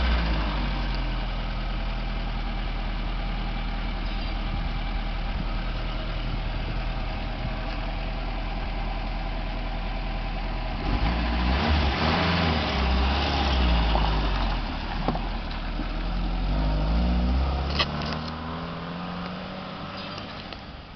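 1969 Saab 95's Ford Taunus 1.5-litre V4 engine idling steadily, then revving as the car pulls away, its pitch rising and falling several times before fading into the distance near the end.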